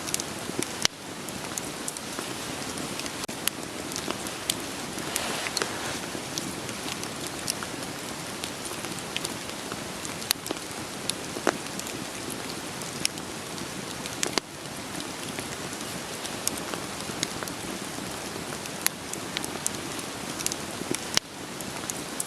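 Wood campfire crackling under steady rain: a continuous hiss of rainfall with scattered sharp pops and snaps of burning firewood.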